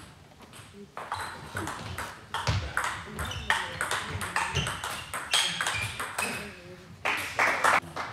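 Table tennis rally: the ball ticking sharply off the bats and the table in quick alternation, with a louder cluster of ticks near the end.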